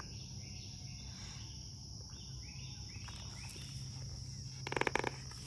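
Insects chirring in a steady high drone, with a few faint short chirps in the middle and a brief rapid rattle about five seconds in.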